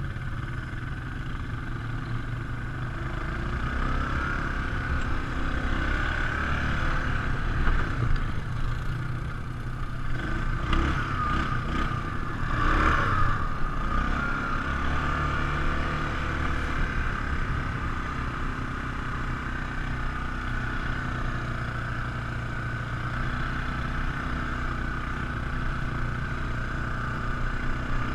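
All-terrain vehicle engine running as the quad is ridden, a steady drone that swells with the throttle, loudest about eight seconds in and again around twelve to thirteen seconds.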